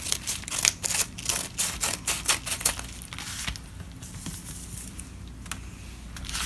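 Packaging being handled and opened: sharp crinkling and crackling, thick for the first three seconds, then sparser quieter rustles and ticks.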